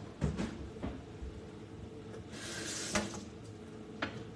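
Kitchen handling sounds: a few separate knocks and clunks of things being moved or set down, with a short hissing rush about two and a half seconds in.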